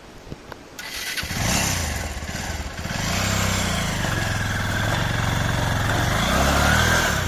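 Motorcycle engine picking up about a second in and revving hard under load, its pitch rising twice before dropping back near the end.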